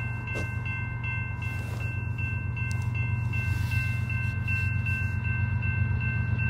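Railroad crossing bell ringing steadily at a grade crossing, over the low rumble of an approaching train that grows gradually louder.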